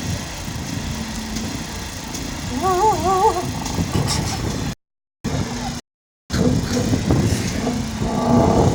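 A man imitating a Freightliner truck's diesel engine with his mouth, making a pulsing idle rumble that turns fuller and louder near the end. The sound cuts out to silence twice, briefly, in the middle.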